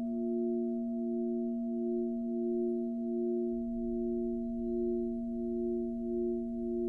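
A sustained ringing drone of a few steady pure tones, the middle one swelling and fading in a slow, even pulse about one and a half times a second.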